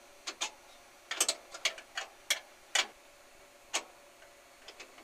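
Sharp metal clicks and taps, irregularly spaced and a dozen or so in all, as a wrench is worked on the nut of the canopy arm's mounting bolt under a stainless-steel cart to tighten it.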